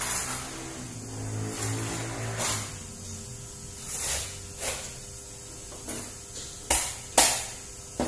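A long kitchen knife being honed against another knife blade: a series of quick metal-on-metal scraping strokes, the two loudest and sharpest a little before the end.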